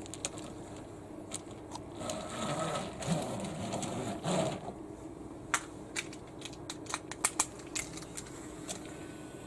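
Wooden toy subway car handled and set on toy train track: a rolling rattle for a couple of seconds, then a scatter of light, sharp clicks and taps.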